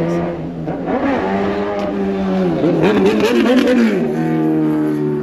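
A vehicle engine running, its pitch holding steady and then shifting up and down a few times.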